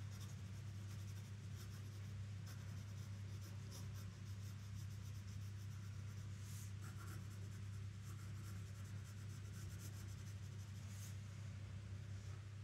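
Wooden pencil scratching and shading on a sheet of paper in quick, light strokes, with a couple of firmer strokes about halfway through and near the end, over a steady low hum.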